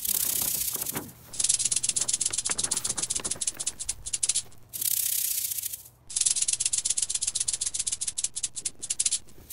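Rattlesnake rattling its tail: a loud, dry, rapid buzz in several stretches of one to three seconds separated by short breaks, the defensive warning of a coiled rattlesnake.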